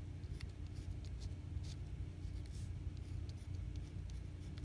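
Pencil writing on construction paper, a series of faint scratching strokes, over a steady low hum.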